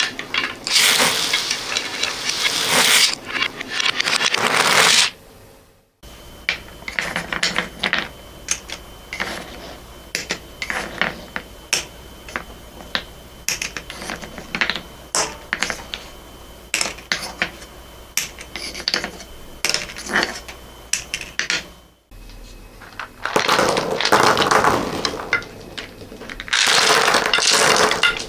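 Small hard beads and balls clattering in dense, loud rushes, broken off abruptly twice. In the middle stretch, many separate sharp clicks and knocks of marbles or balls.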